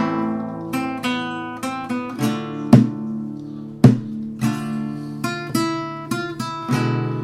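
Acoustic guitar strummed in a rhythmic chord pattern, with chord changes and two sharp, percussive accented strokes about 3 and 4 seconds in.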